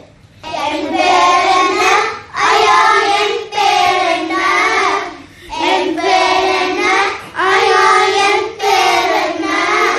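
Young schoolchildren singing a song in Tamil, in short held phrases with brief breaths between them.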